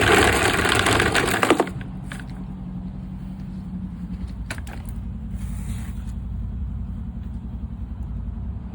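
Drill spinning a dryer vent cleaning brush on its rods inside the vent, a loud rattling whirr that cuts off suddenly about a second and a half in. A steady low hum carries on underneath, with a few faint clicks.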